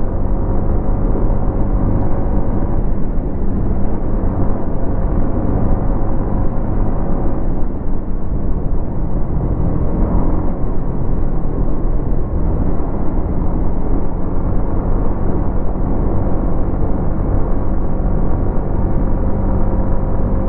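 Yamaha MT-15's 155 cc single-cylinder engine running through its stock exhaust while being ridden at a fairly steady speed, its note dipping and shifting briefly twice along the way.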